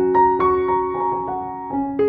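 Background piano music: a melody of single struck notes, about four a second, over held lower notes.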